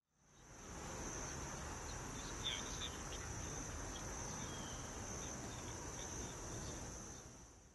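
A steady, high-pitched insect trill over a low background rumble, fading in at the start and fading out near the end. A few faint short chirps about two and a half seconds in.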